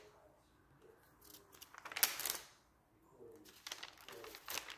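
Paper pages of a spiral notebook rustling as it is handled, in short crinkling bursts, the loudest about two seconds in.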